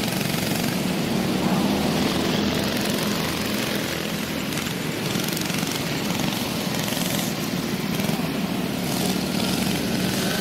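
Go-kart engines running steadily as the karts race.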